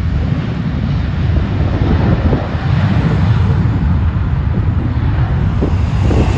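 Boeing 737-700 Business Jet's turbofan engines at takeoff power during the takeoff roll, a loud, steady, deep jet rumble, mixed with wind buffeting the microphone.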